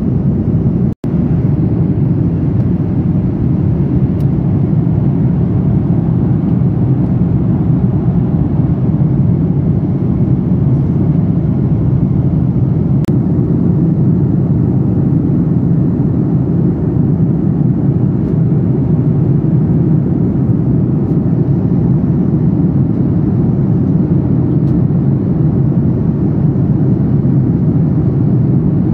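Steady cabin noise of an Airbus A330-900 airliner in flight, a loud even rumble of engines and rushing air heard by the window seat, with a brief dropout about a second in.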